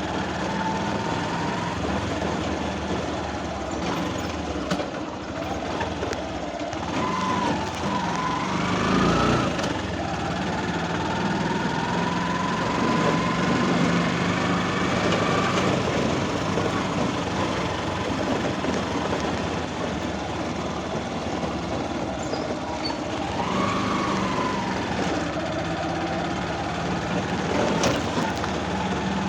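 Vehicle engine running continuously, its whine rising and falling several times as it speeds up and slows down.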